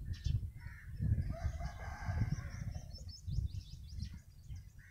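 A rooster crows once, starting about a second and a half in and lasting just over a second. Under it are low rumbling noise and faint crisp clicks from the dog chewing dry cattle feed.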